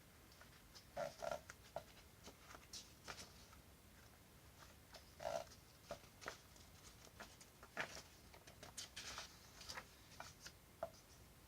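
Faint handling noises: scattered small clicks and rustles of packaging and items being handled, with a few louder taps about a second in, about five seconds in and about eight seconds in.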